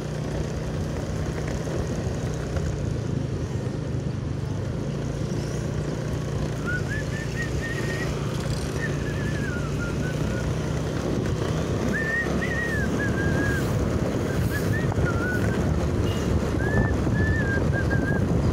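Wind rushing over the microphone and road noise from a moving vehicle, with a steady low engine hum in the first half. From about a third of the way in, a whistled tune comes and goes in short wavering phrases.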